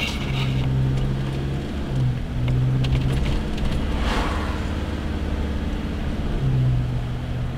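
Land Rover engine running as it drives along, a low steady drone heard from the cab. An oncoming car passes with a brief swell of tyre and engine noise about four seconds in.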